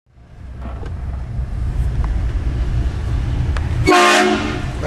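Low rumble of a car moving, then a car-mounted train horn blasting about four seconds in: a loud chord of several steady tones, the loudest sound here.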